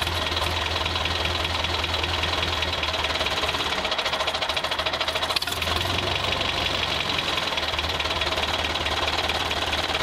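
Tractor engine sound running steadily with a fast, even chugging knock.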